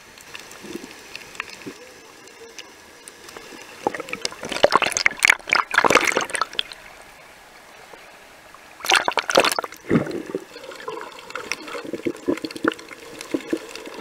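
Water sloshing and splashing around a snorkeler's camera as it moves at and just under the surface, with two louder spells of splashing, about four and nine seconds in, between stretches of fainter underwater gurgling.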